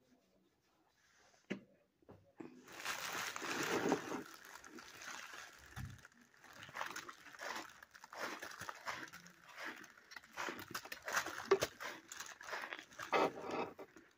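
Biting into and chewing a mouthful of snowy ice mixed with cornstarch, close to the mouth: dense crackling crunches starting a little over two seconds in, then a long run of sharp crunches and clicks as it is chewed.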